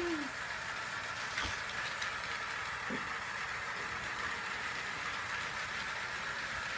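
Battery-powered TrackMaster toy engines running on plastic track: a steady motor whirr, with a light knock about one and a half seconds in.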